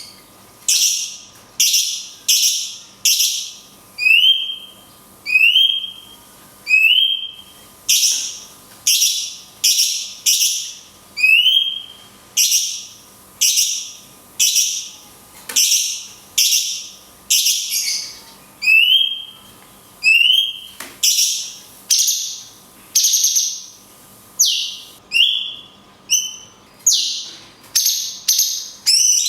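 Cucak cungkok bulbul singing a loud, repeated series of short sharp whistled notes, one or two a second. Low rising notes alternate with higher slurred ones.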